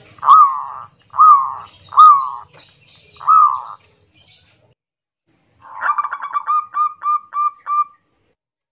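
Zebra dove (perkutut) cooing in the loud, full-voiced song style keepers call 'kerot nguwor'. It gives four short separate coos, then after a pause a rolling coo that breaks into a run of about seven quick clipped notes, roughly three a second.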